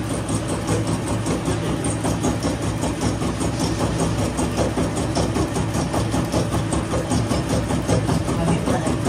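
An engine running steadily at idle: a constant low hum with an even, fast pulse.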